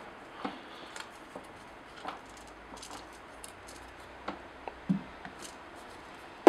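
Light plastic clicks and taps from handling a DSLR camera body and its clear plastic rear-screen cover. There is a soft thump about five seconds in and a louder knock at the very end, as of something set down on a table.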